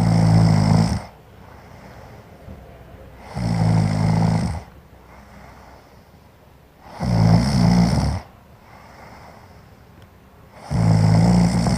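A woman snoring loudly: four rattling snores, each about a second long and spaced about three and a half seconds apart, with quieter breaths between them.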